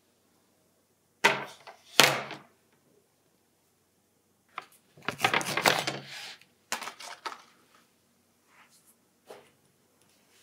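Tableware and a paper ice cream tub being handled on a wooden table: two sharp knocks as things are set down, a stretch of scraping and rustling, then lighter clicks and scrapes. Near the end a metal scoop scrapes into hard-frozen ice cream.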